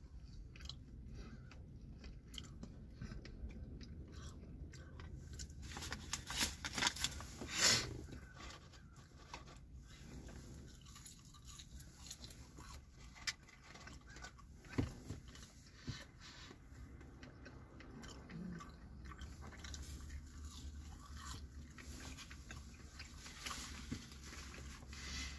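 A person chewing and biting into a McDonald's crispy chicken sandwich, with wet mouth sounds and crunching bites. The crunches are loudest and most frequent about six to eight seconds in, with a few sharp single crunches later.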